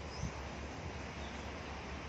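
Steady outdoor background noise with a low rumble, like wind on the microphone, and no distinct shot or impact.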